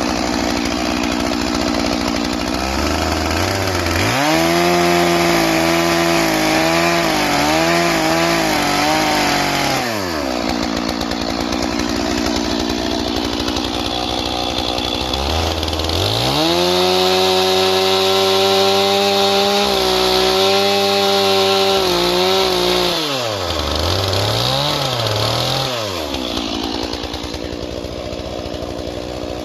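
Stihl MS 461 two-stroke chainsaw idling, then run up to full throttle twice for several seconds each, the pitch wavering under load as the chain cuts through a log, dropping back to idle between cuts. A few quick throttle blips near the end before it settles back to idle.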